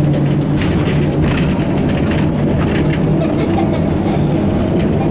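Cabin noise of an Ikarus 260.50 city bus under way: its diesel engine runs steadily with a low hum, and irregular light rattling sounds over it.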